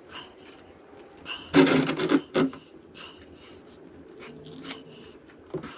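Oil filter being worked loose from a motorcycle engine with a filter wrench: a loud rasping scrape about one and a half seconds in and a shorter one just after, with small clicks and knocks of the tool around them.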